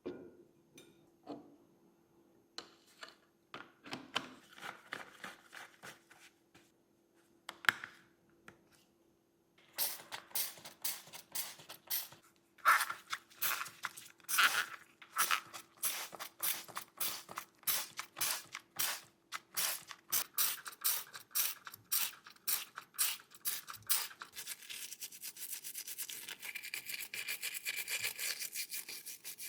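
Repeated back-and-forth hand rubbing strokes on a small die-cast model part. A few scattered strokes at first, then a steady run of about two to three strokes a second from about a third of the way in, turning faster and denser near the end.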